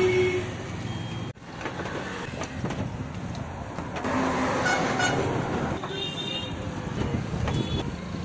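Road traffic going past with a couple of short horn toots, over the sizzle of pakoras deep-frying in a wok of hot oil.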